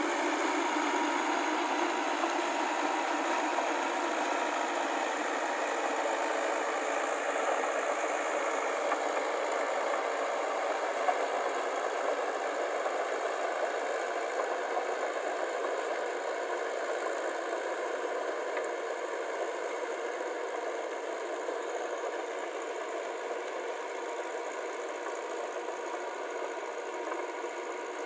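Massey Ferguson tractor engine running steadily as it pulls a rotary tiller, with a rattle over it. It slowly grows quieter toward the end.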